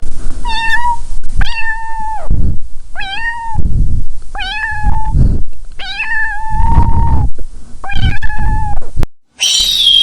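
Domestic cat meowing repeatedly: six separate meows of similar pitch, each about half a second to a second long, the fifth one drawn out longer.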